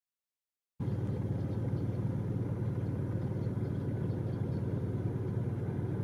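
Silence for the first second, then a steady low outdoor background rumble starts abruptly and runs on evenly.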